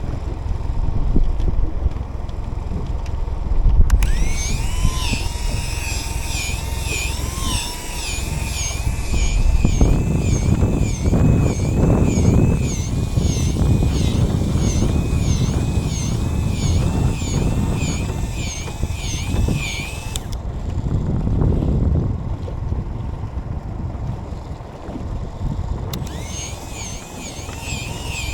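A small electric motor whining with a pitch that warbles up and down in a regular rhythm. It switches on abruptly about four seconds in, cuts off suddenly near twenty seconds, and starts again near the end, over steady wind and boat noise.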